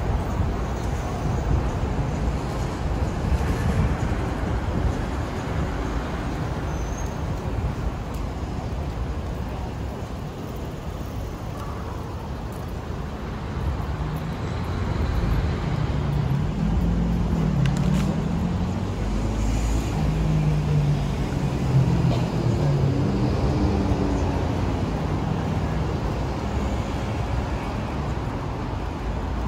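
City street traffic noise: a steady rumble of cars passing. People's voices can be heard talking nearby through the middle of the stretch.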